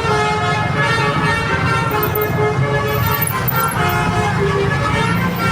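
A bus's basuri ("telolet") multi-tone musical horn playing a quick tune of stepping notes, several sounding together, over a steady low engine rumble.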